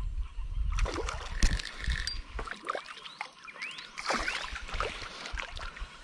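A hooked white bass being reeled in and landed on light line: water splashing and sloshing, with scattered clicks and knocks from the tackle and handling.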